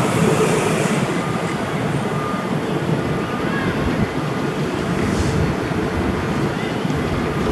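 Diesel-electric locomotive engine running steadily as the locomotive approaches slowly along the station tracks.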